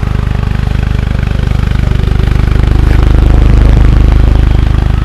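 A vehicle engine running close by with an even, pulsing beat. It grows louder a little past the middle and eases off near the end, like a car moving past.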